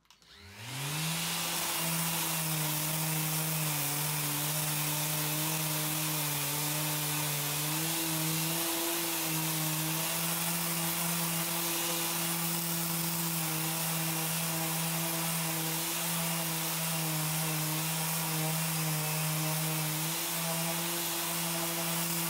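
Electric random orbital sander spinning up about half a second in, then running steadily as its pad sands a maple and epoxy resin board.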